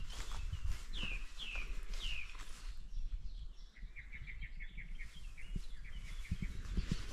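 A small songbird calling outdoors: four quick, downward-sliding chirps about half a second apart, then a fast trill of short notes a little past the middle. A low rumble with scattered thumps runs underneath.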